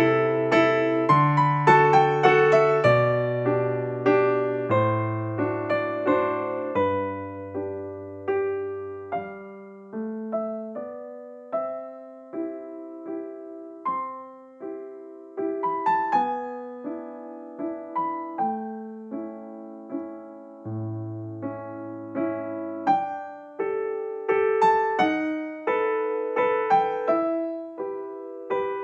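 Background piano music: a gentle melody of struck notes over a slow bass line.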